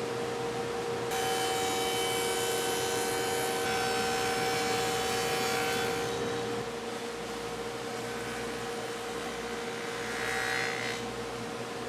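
Power tools cutting walnut, a router in a router table and a table saw: a steady high motor whine under the noise of the cut. The cutting sound changes abruptly about a second in and again around six and a half seconds in.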